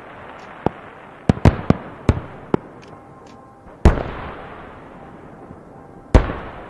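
Aerial firework shells bursting: a quick run of sharp bangs in the first three seconds, then two big booms, about four and six seconds in, each trailing off in a long fading rumble.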